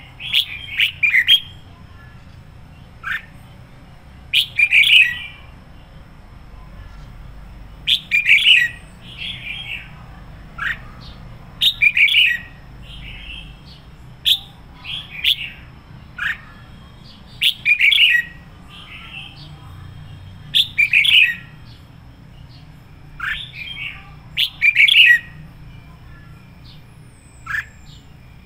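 Red-whiskered bulbul singing short, bright whistled phrases, one every two to four seconds.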